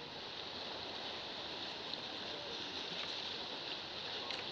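Small sea waves lapping and splashing against shoreline rocks: a steady watery wash with a few faint ticks.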